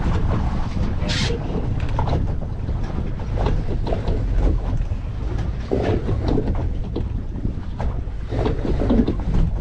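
Steady wind buffeting the microphone, a loud low rumble, with faint voices in the background about six and nine seconds in.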